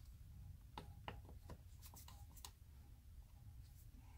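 Near silence with a few faint clicks and rustles from gloved hands handling wires and connectors in the compressor's controller box, bunched in the first half.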